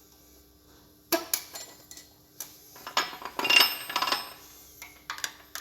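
Steel gearbox parts clinking and scraping as a snap ring is worked onto a Massey Ferguson 135 gearbox mainshaft. There is a sharp clink about a second in, a denser clatter of clinks around three to four seconds, and a few clicks near the end.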